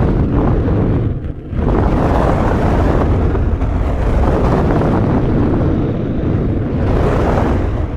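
Large fire burning: a loud, dense rushing noise with a strong low rumble, dipping briefly about a second in and starting to fade at the very end.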